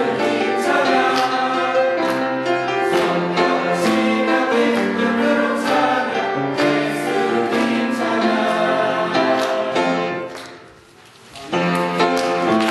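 Mixed choir of men's and women's voices singing a Korean worship song in sustained, held notes. About ten seconds in the singing drops away for roughly a second, then music starts up again.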